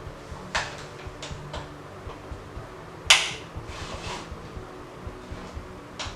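Handling sounds: a scattering of clicks and knocks, the sharpest and loudest about three seconds in, over a faint steady hum.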